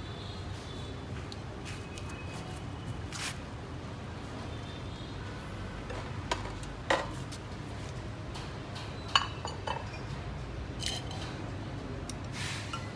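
Scattered knocks and clinks as a large catfish carcass is shifted and set down on a stainless steel table and wooden chopping block, over a steady low background hum.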